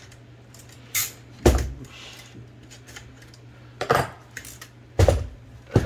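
Metal parts of an Olivetti Linea 98 typewriter's mechanism clacking and knocking as it is worked by hand: five sharp metallic knocks at uneven intervals, over a faint steady low hum.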